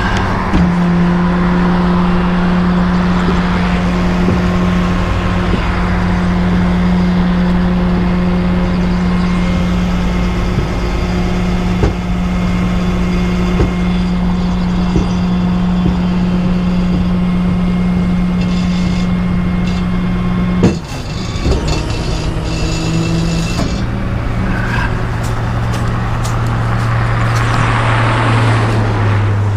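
Rollback tow truck's engine running steadily at raised revs to power the bed hydraulics as the flatbed tilts and slides back. About two-thirds of the way through, a single clunk sounds and the engine note drops lower.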